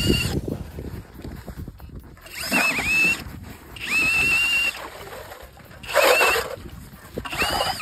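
Cordless drill turning a hand ice auger into lake ice, run in four short bursts. Each burst's motor whine drops in pitch as it starts and then holds steady, with quieter grinding of the auger in the ice between bursts.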